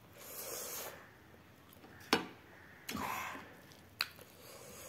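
Close-up eating sounds of fingers mixing rice and cooked greens on a plate. Two soft breathy rushes, one near the start and one about three seconds in, and two sharp clicks, about two and four seconds in.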